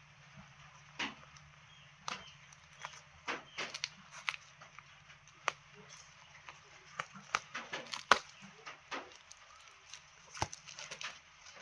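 Plant pots and packing being handled: irregular sharp clicks, knocks and crinkles, the loudest about eight seconds in.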